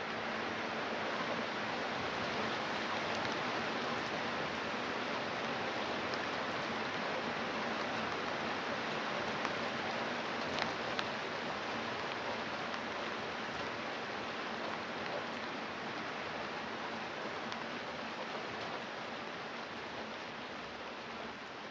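Steady rain falling: an even hiss with the odd sharper drop tick standing out.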